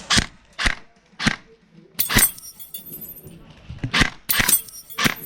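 Airsoft electric rifle firing a string of sharp single shots, about seven cracks, with a couple of short rapid clusters near the middle and near the end.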